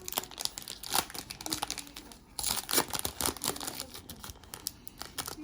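A trading card pack's wrapper being torn open and crinkled in the hands: a run of sharp crackles and rustles, busiest about halfway through.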